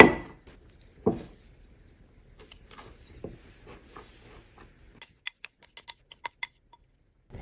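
A wooden spatula knocking against a glass bowl: a sharp knock at the start and another about a second in. Near the end comes a quick run of small clicks as the spatula scrapes the bowl clean.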